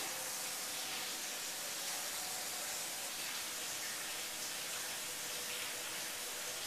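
Water running in a steady rushing hiss, as from a tap filling a container with water for the dough. It starts abruptly and is cut off just after the end.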